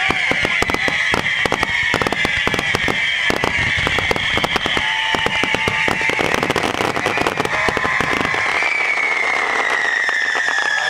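Fireworks display: a rapid barrage of bangs and crackling bursts that thins out after about eight seconds, with a steady high tone behind it.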